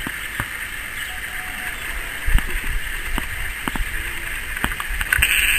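Outdoor ambience: a steady high-pitched hiss with scattered clicks and low wind rumble on the microphone. The hiss grows louder near the end.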